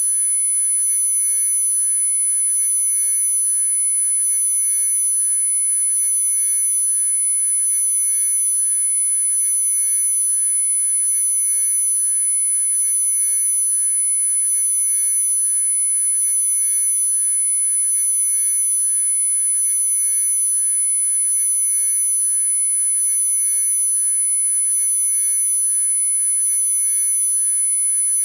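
Electronically generated pure sine tones from a sound-therapy frequency track, several held together without change. The loudest is a very high, thin tone, over fainter lower tones.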